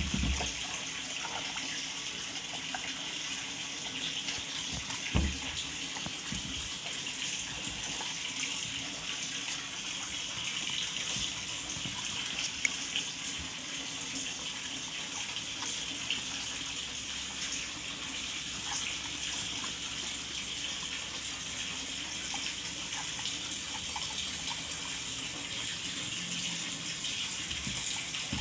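A steady hiss of water, with a single low thump about five seconds in and a few faint clicks.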